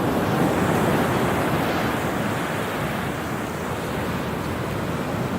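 Heavy storm-driven surf breaking and washing up the beach, with wind buffeting the microphone. It is a steady rush, a little louder in the first second or two.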